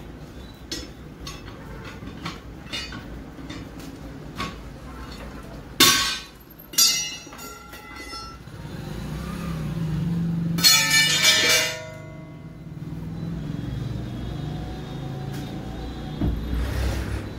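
Steel tyre levers clinking and clanging against a truck wheel's steel rim as the tyre is worked off, with two loud ringing clangs about six seconds in and a longer ringing metallic clatter near eleven seconds. A low rumble swells in the background through the middle.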